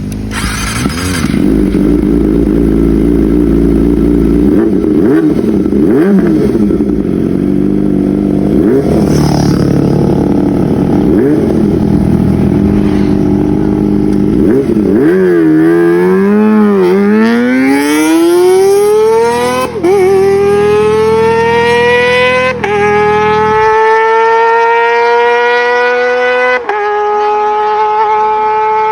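Kawasaki ZX-25R's 250 cc inline-four with an Arrow Pro Race exhaust idling with several quick throttle blips. It then accelerates hard, its high-pitched note climbing steadily and dropping back at three upshifts.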